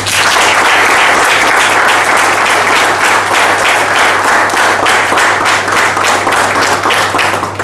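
Audience applauding: many people clapping steadily, stopping just before the end.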